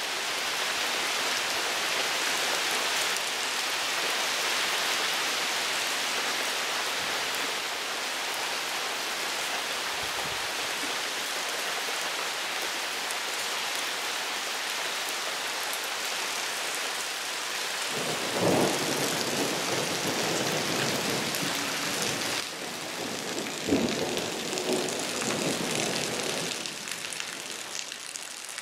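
Heavy rain pouring steadily onto wet ground and puddles, a dense even hiss. Two louder, deeper surges come through the rain in the last third.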